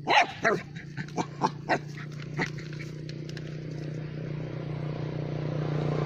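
Dog barking: one loud bark falling in pitch, then about five short barks over the next two seconds or so. After that a steady low engine hum slowly grows louder.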